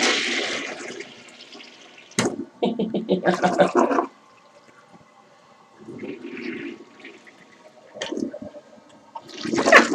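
Toilet flushing: a loud rush of water at the start that fades over about a second and a half. Quieter sounds follow, with a sharp click about two seconds in and another near the end.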